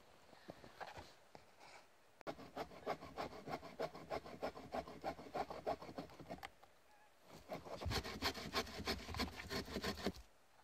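Hand saw cutting through a dead fallen log with steady back-and-forth strokes, in two bouts with a short pause between them; the second bout ends as the section comes free.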